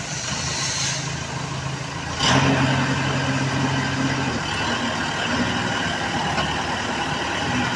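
Water well drilling rig's 55 kW engine running. About two seconds in it suddenly gets louder, with a steady low hum that fades out a couple of seconds later while the engine runs on.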